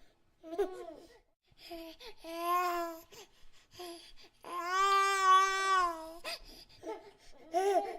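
Baby babbling in short high-pitched bursts, with two drawn-out cries: a short one about two seconds in and a longer, louder one held at a steady pitch around the middle.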